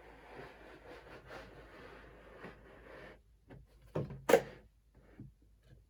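The fin can of a 7.5-inch LOC rocket sliding along inside the epoxy-coated booster airframe tube, with a steady scraping rub for about three seconds, then two sharp knocks about four seconds in as it is pushed home.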